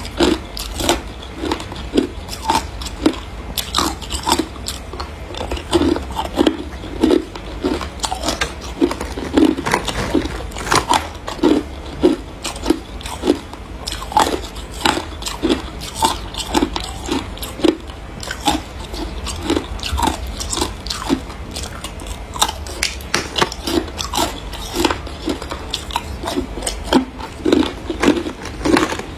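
Person biting and chewing chunks of frosty ice close to the microphone: a steady run of sharp, crisp crunches, about one or two a second, with chewing between bites.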